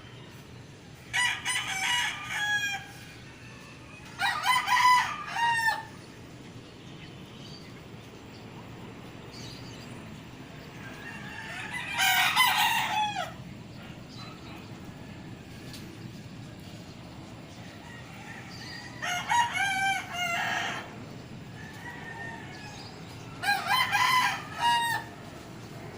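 Rooster crowing five times, each crow about one and a half seconds long, spaced several seconds apart over a steady low background hum.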